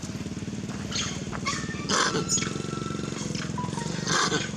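A small engine running steadily with a fast low pulse, with a few short, high animal cries over it.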